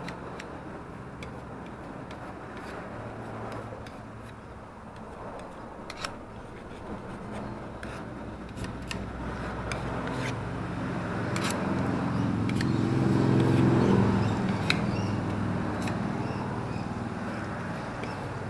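Metal putty knife scraping and clicking on a smooth panel as plaster filler is spread into nail holes. A motor vehicle passes, its engine growing louder to a peak about two-thirds of the way through and then fading.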